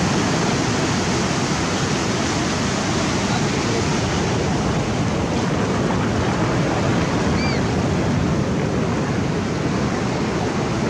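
Ocean surf breaking and washing up the beach: a steady rush of waves and foam.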